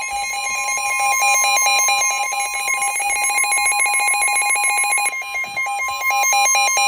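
NOAA Weather Radio warning alarm: the steady 1050 Hz attention tone, with weather radio receivers' electronic alarms beeping rapidly in alternating pitches over it. This is the alert that comes before a new severe thunderstorm warning is read.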